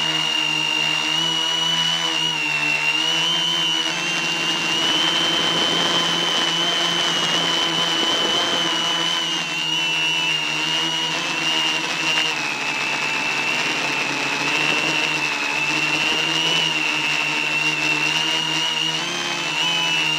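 Quadcopter's electric motors and propellers running in flight, heard from on the airframe: a steady high whine whose pitch wavers slightly as the throttle shifts.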